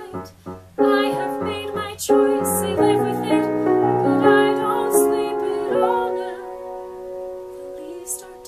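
A woman singing a musical theatre ballad over piano accompaniment, holding a long note in the second half.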